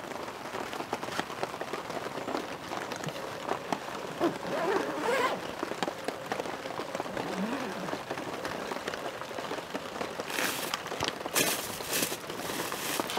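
Steady rain pattering as a dense scatter of small drops, with a few brief louder rustling bursts near the end.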